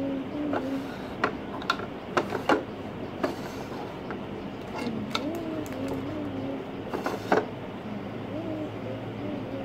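Scattered clicks and knocks from a handheld phone being moved and handled, over a steady low hum. A low wavering hum-like voice comes and goes a few times.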